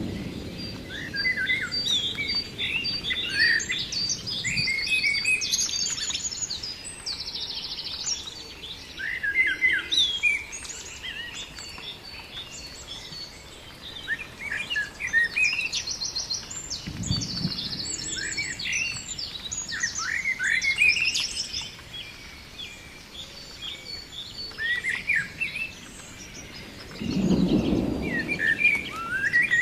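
Many birds chirping and singing at once in overlapping quick calls and trills. Low rumbles come in about halfway through and again, louder, near the end.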